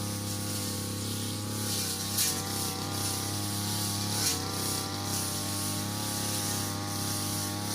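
Brush cutter engine running steadily at working speed while cutting grass. There are two short louder hisses, about two and four seconds in, and the engine dips briefly in pitch at the second, as the blade takes load.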